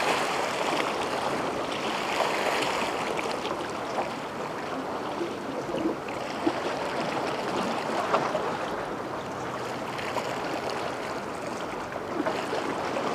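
Small ocean waves washing and lapping at the shore in a steady wash, with a couple of faint taps partway through.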